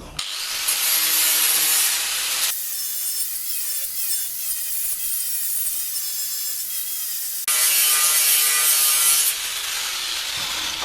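A power tool abrading metal: a steady, loud, hissing scour with faint motor whine. It cuts abruptly between sections about two and a half, seven and a half and nine seconds in.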